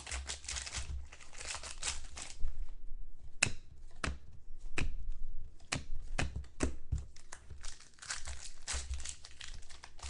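Trading card pack wrapper crinkling and tearing as it is opened, with sharp clicks of handling in between.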